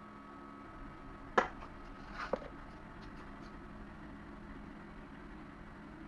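Two sharp taps about a second apart, the first the louder, from hands working in a wooden sand-casting flask as the pattern is set in, over a faint steady hum.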